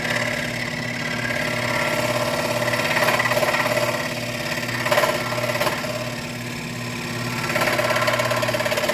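WEN electric scroll saw running, its reciprocating blade cutting into wood with a steady hum that swells louder several times as the blade bites.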